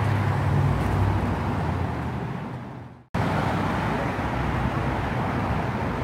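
Steady traffic noise from the freeway overhead and the street, with a low engine hum that fades out in the first half. About three seconds in, the sound dips briefly to near silence at an edit cut, then the traffic noise comes back.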